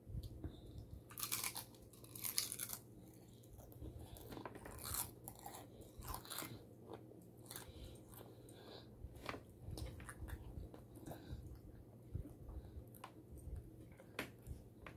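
Crunchy food being bitten and chewed, with loud crunching bites over the first few seconds followed by softer chewing. A few light clicks of a metal fork against a ceramic plate come near the end.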